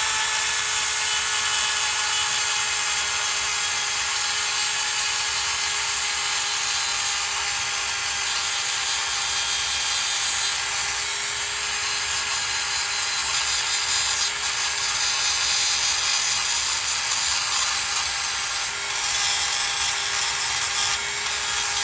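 Small high-speed rotary tool grinding the metal rail of three-rail tube track, a steady high whine over a gritty hiss, to rough up the surface for soldering wires. The grinding sound shifts in level a couple of times as the contact changes.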